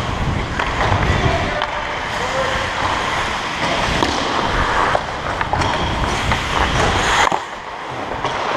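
Ice hockey skate blades striding and scraping on rink ice, with a low rumble of air rushing over a helmet-mounted camera's microphone and a few sharp clacks of sticks or puck. The rumble eases off about seven seconds in as the skater slows.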